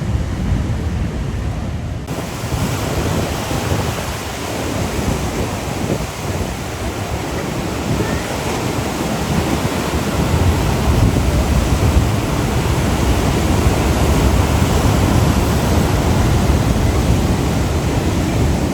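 Ocean surf washing against the rocky shore, a steady rushing wash with a deep rumble underneath. It grows fuller about two seconds in and a little louder in the second half.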